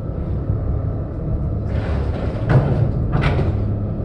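Ferry engines idling with a steady low rumble while the boarding gangway is put in place. About two seconds in there is a rushing scrape, then two sharp metallic knocks less than a second apart.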